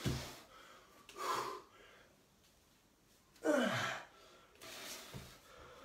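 A man breathing hard with effort during a kneel-to-stand with an overhead dumbbell press: short exhalations and gasps. The loudest comes about three and a half seconds in, with a falling pitch.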